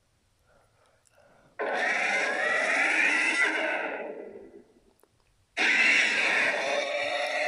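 Two harsh, noisy animated-creature cries from a character sound-effect set. The first starts abruptly about a second and a half in and fades out after about three seconds; the second starts just as abruptly near the end.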